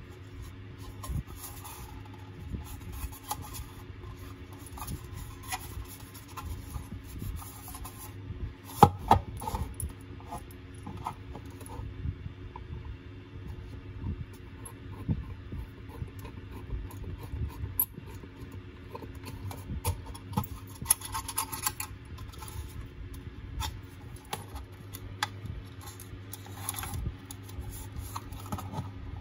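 Hands working a small black plastic box: plastic clicks and knocks, with rubbing and scraping as a hole is drilled through the plastic with a thin hand drill, over a steady low hum. One sharp knock stands out about a third of the way through.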